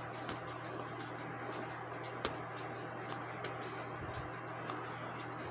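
A few irregular light clicks of small metal clock-movement parts handled with the fingers, the sharpest about two seconds in, over a steady low hum.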